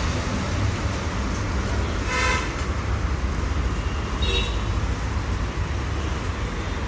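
Steady road-traffic rumble, with a short vehicle horn toot about two seconds in and a brief higher-pitched beep a little after four seconds.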